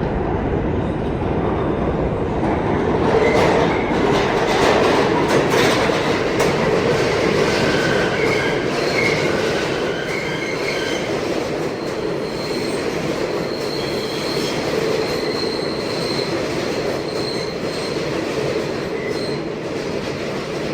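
New York City subway train running along the rails with a steady rumble, its steel wheels squealing in thin high tones that come and go from about eight seconds in.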